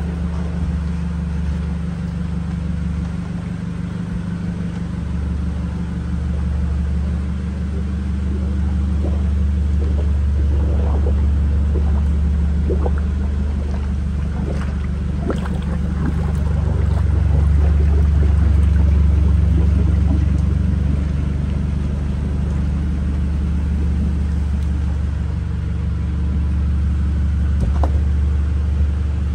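A forklift's engine running steadily with a low rumble, with a few faint ticks over it.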